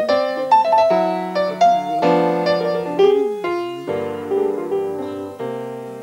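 Solo jazz piano playing a flowing run of chords and quick melodic lines, with bass notes joining about four seconds in.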